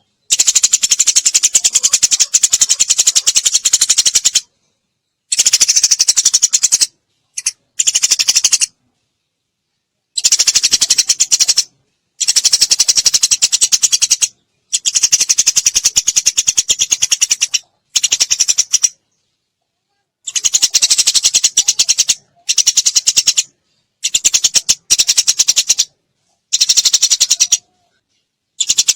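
Eurasian tree sparrow song in rapid-fire chatter: fast strings of high chirps run together like bursts of fire, in about a dozen bouts of one to four seconds separated by short dead-silent gaps.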